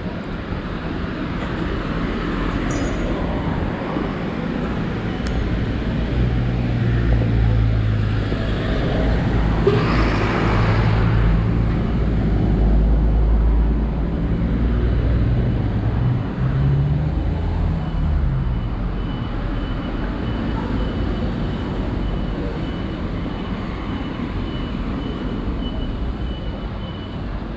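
Road traffic with a vehicle's engine running close by, loudest through the middle and shifting in pitch shortly before the end of that stretch. Another vehicle rushes past about ten seconds in.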